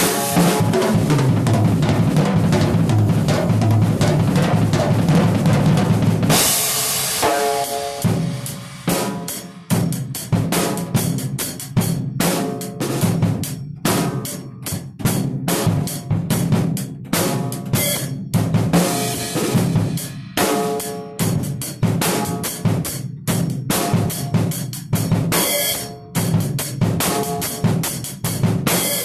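Acoustic drum kit being played: bass drum, snare, toms and cymbals. Dense, continuous drumming with cymbal wash for about the first six seconds, then it breaks into separate hits and fills with short gaps between phrases.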